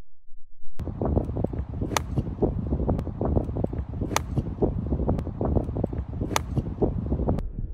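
Golf club striking the ball three times, about two seconds apart, each a sharp crack, over wind buffeting the microphone. The wind noise starts abruptly about a second in and cuts off just before the end.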